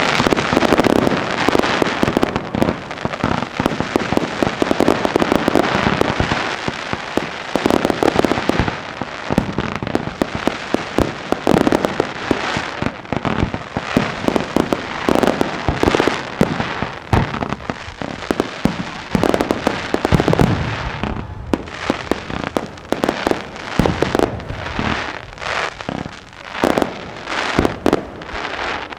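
Aerial firework shells launching and bursting in a dense, rapid barrage of bangs and crackle. About two-thirds of the way in, it thins out into separate bangs with short gaps between them.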